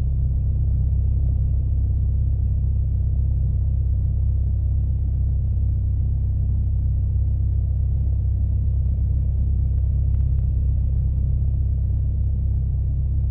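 Piper Archer II's four-cylinder Lycoming engine running steadily at low power while the plane holds short for takeoff, a constant deep drone heard inside the cabin.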